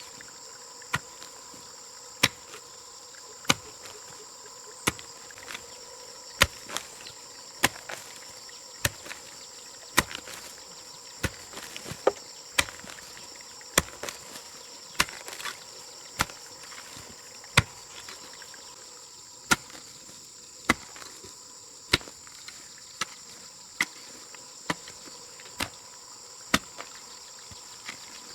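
Sharp knocks, about one a second, each a single hard strike, over a steady high-pitched insect chorus.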